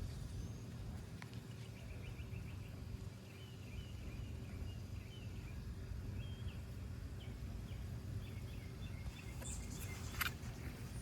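Small birds chirping in quick short series over a steady low background rumble, with a loud sharp click near the end.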